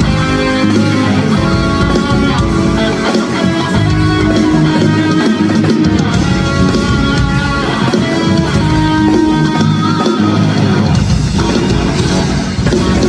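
Loud music with electric guitar and drum kit, playing continuously with a steady beat.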